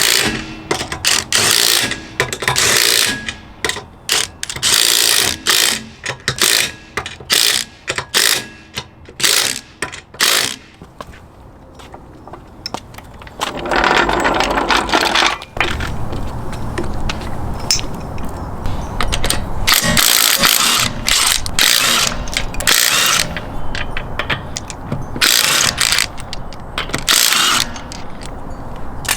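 Ryobi 1/2-inch cordless impact wrench running lug nuts onto a wheel in short rattling bursts. There are many quick bursts, a longer run about halfway through, and then several more bursts of about half a second each.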